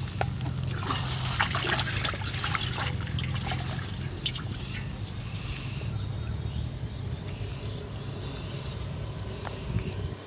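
Water splashing and trickling, with short splashy clicks that are busiest in the first three seconds and thin out after, over a steady low rumble.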